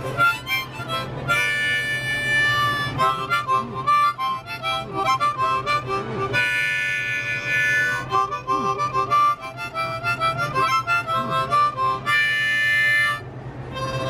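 Solo harmonica, cupped in the player's hands, playing a lively tune: quick runs of short notes, broken by held chords about a second and a half in, around six and a half seconds in, and again near the end.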